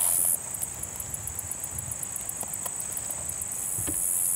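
Field insects trilling high and steady, with a rapid, evenly pulsing trill from about half a second in until near the end. A few faint ticks of handling.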